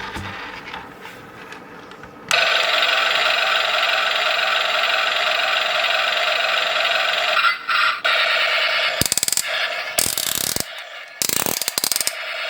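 Lanson Toys Abrams toy tank's sound-effect unit playing a steady electronic engine sound through its small speaker, thin with no bass, starting about two seconds in and lasting about five seconds. Rapid clicking and rattling follow in the last few seconds.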